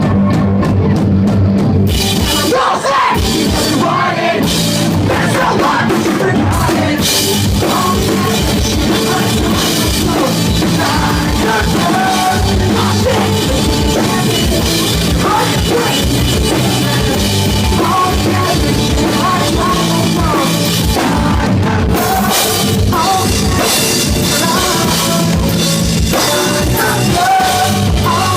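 Pop-punk band playing live at full volume, with drum kit and sung vocals over loud, dense instruments and a steady beat.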